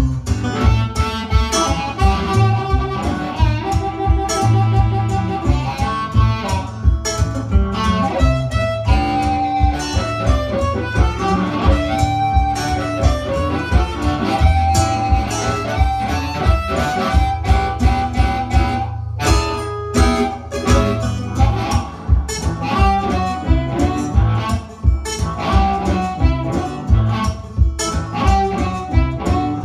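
Live guitar music playing an instrumental blues passage over a steady beat, with a lead instrument holding long notes above the strumming.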